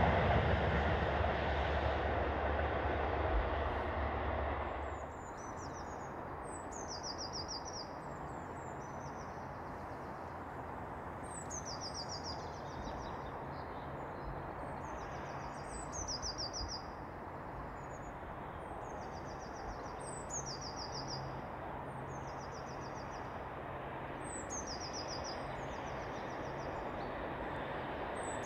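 A train passing and fading away, cut off about five seconds in. Then a songbird sings the same short descending, trilling phrase every few seconds over a faint low hum from a GBRf Class 73 electro-diesel locomotive approaching in the distance.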